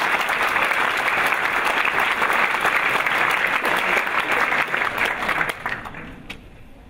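Theatre audience applauding, dense and steady, then dying away about five and a half seconds in, with a few last scattered claps near the end.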